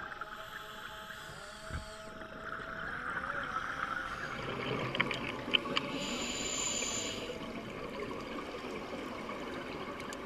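Muffled underwater ambience picked up through an underwater camera housing: a steady wash of water noise with a faint tone that drifts in pitch early on and a few sharp clicks about five seconds in.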